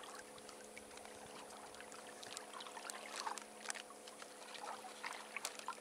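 Small waves lapping and splashing against a kayak's plastic hull in irregular little slaps and trickles, over a faint steady hum.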